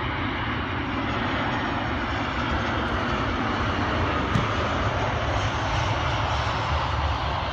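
Airliner engines passing, a steady rushing noise that swells slightly through the middle, with a faint high whine falling in pitch.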